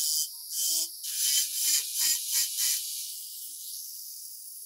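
Small handheld rotary tool with a pointed bit grinding rust off a steel gun frame: a high-pitched hiss that swells in short bursts, about three a second, as the bit bites the metal, then eases to a steadier, quieter whir about three seconds in.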